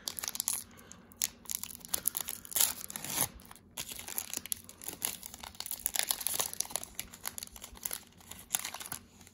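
Foil wrapper of a Pokémon booster pack crinkling in the hands as it is torn open, an irregular run of crackles and rips.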